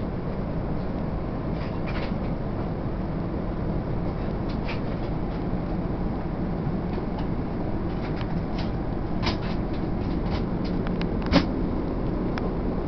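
Steady low rush of cabin noise inside an Airbus A380 economy cabin in flight, from airflow and engines. A few faint clicks are scattered through it, with one sharper knock near the end.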